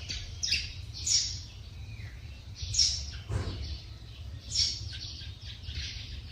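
Birds calling outdoors: short, harsh, high calls that sweep downward, repeated every second or so, over a steady low rumble.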